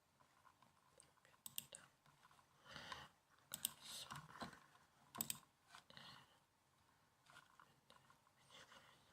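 Typing on a laptop keyboard: faint, irregular keystroke clicks, with the loudest taps about three and a half and five seconds in.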